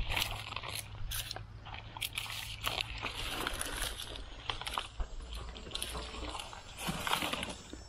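Onions pulled by hand from dry, cracked garden soil, with irregular crunching and rustling of the onion tops and crumbling dirt.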